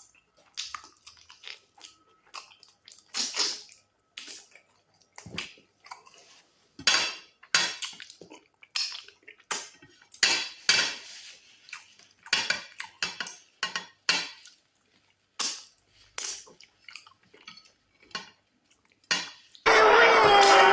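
Close-miked eating sounds: irregular short bursts of chewing and mouth smacking with occasional clinks of a dish, as fufu with goat meat and black soup is eaten. Music starts abruptly about a second before the end.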